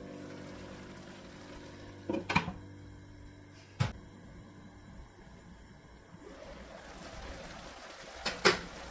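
Glass pot lid clinking against the metal rim of an electric pot a few times: a pair of clinks about two seconds in, one a little later and another pair near the end. Under the clinks, water is faintly simmering in the pot.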